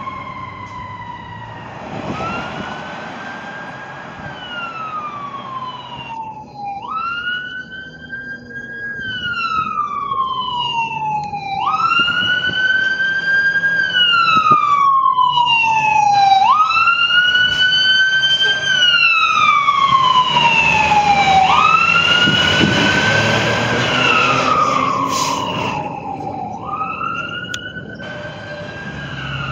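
Fire truck sirens wailing. A siren fades away in the first seconds, then another starts, rising quickly in pitch and sliding slowly back down about every five seconds. It grows loud in the middle as the truck passes close and then eases off.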